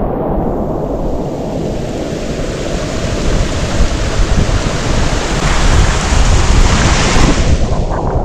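Large tropical waterfall, the first fall of the Grand Carbet river, rushing: a loud, dense, steady roar of falling water that swells over the last few seconds and ends abruptly.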